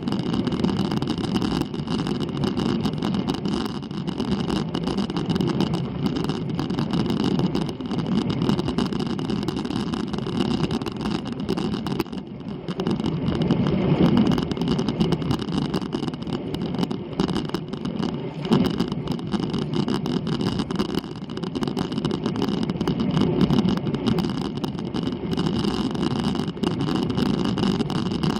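Steady ride noise of a road bike climbing on asphalt, heard through a handlebar-mounted action camera: tyre and road rumble with drivetrain hum, dipping briefly about halfway through.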